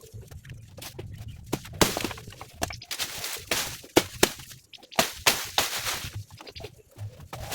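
A run of irregular sharp knocks and snaps, some close together and some a second or more apart, with rustling between them.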